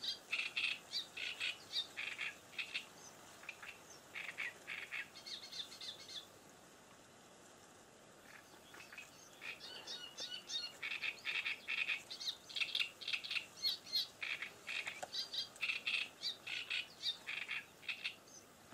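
A small songbird sings in quick runs of short, high chirps and stops for a couple of seconds midway before starting again.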